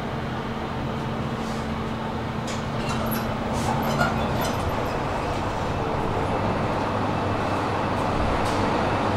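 Fast inclined elevator running on its track: a steady rumble with a hum that drops lower about halfway through, and a few faint clicks in the middle.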